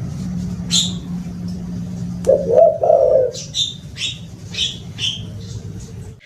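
Spotted dove cooing: a two-note coo about two seconds in. Small birds chirp, with a run of about five quick chirps after the coo, over a steady low hum.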